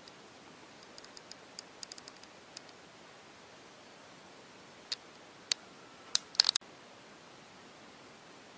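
Steady hiss with a run of light ticks about a second in, then a few sharper clicks between about five and six and a half seconds, the last ones bunched together and ending in a brief dropout.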